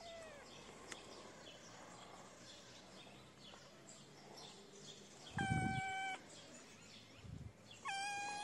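Hungry young kitten meowing for food: two long, high, fairly steady cries, one about five and a half seconds in and another near the end. Faint bird chirps sound behind them.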